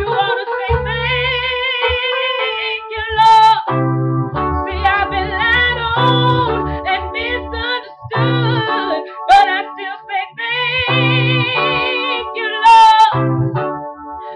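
A woman singing a slow gospel song, holding long notes with wide vibrato, over keyboard accompaniment.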